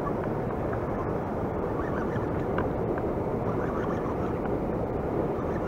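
Steady rushing noise of wind and water around a kayak at sea, with a few faint small ticks.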